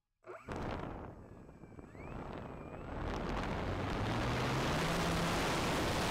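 Electric motor and propeller of an E-flite Cessna 150 Carbon-Z RC plane spinning up on the runway. A faint whine rises in pitch about two seconds in, then from about three seconds in the propeller and the rush of air over the wing-mounted camera grow louder and steadier, with the motor's pitch climbing.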